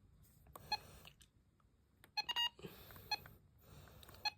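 Short electronic beeps from a weather radio as its buttons are pressed: single beeps about a second apart, with a quick run of several near the middle.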